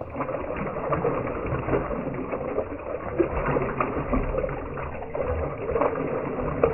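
Water poured in a steady stream from a plastic jerry can into a large metal pot that already holds some water, splashing continuously.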